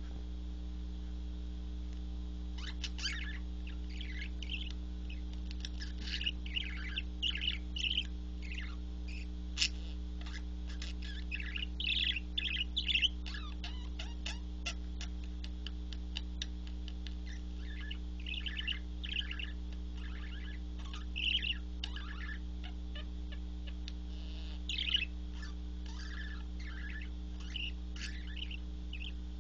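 Budgerigars chirping and chattering, a string of short high chirps that comes and goes, over a steady low hum.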